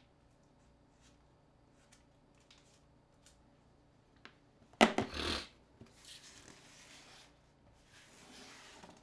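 Smartphones being handled on a table. A few faint small clicks, then about five seconds in a phone is set down with a sharp clack and a brief scrape. Softer rubbing of hands and phones follows.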